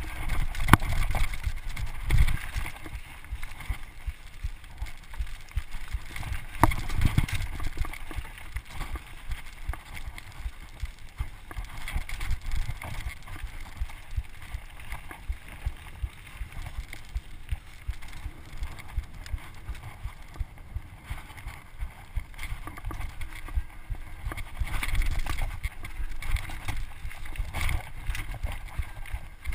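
Mountain bike rolling fast down a rocky trail: knobbly tyres rumbling over rock slabs and loose gravel, with the bike rattling and clattering at every bump and a few heavier knocks now and then.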